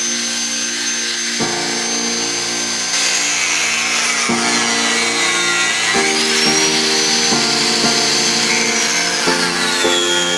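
An electric power tool running, its motor giving a high whine that rises and falls in pitch and drops near the end, with a hissing cutting noise, over background music with changing chords.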